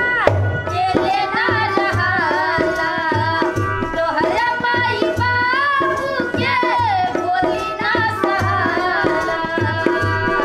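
Bhojpuri folk song performed live: women's voices singing to a harmonium's steady reedy chords, with a dholak drum keeping a regular beat of low thumps and sharp slaps.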